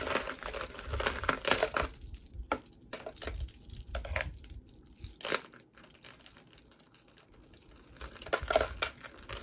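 Metal chains and beaded necklaces clinking and rattling as they are handled, a run of short sharp clicks, busy at the start and again near the end, with scattered single clicks between.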